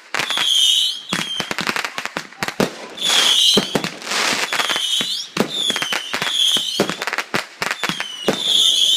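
Backyard consumer fireworks going off in quick succession: a dense run of sharp bangs and crackles, with short high whistles from whistling shells about once a second.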